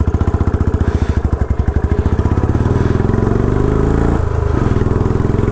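Royal Enfield Bullet's single-cylinder engine thumping at low revs, its beat quickening as the motorcycle accelerates and the note rises. There is a brief dip in the engine note about four seconds in, after which it pulls up again.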